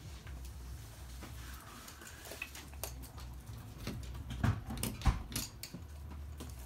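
Toy poodles moving about on a hard floor and an obstacle of tissue boxes set on drink cans: scattered light clicks and taps, with two sharper knocks about four and a half and five seconds in.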